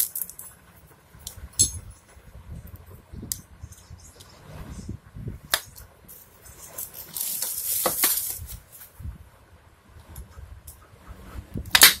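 Scattered metal clinks and taps of a screwdriver against a motorcycle roller chain and the concrete floor, as a stubborn chain link pin is worked. There is a longer scraping noise about seven seconds in and a sharp click just before the end.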